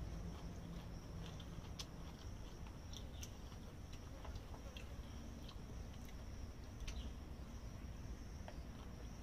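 Quiet eating: spoons tapping and scraping in paper lunch boxes, with a few sharp clicks, over a steady high-pitched drone.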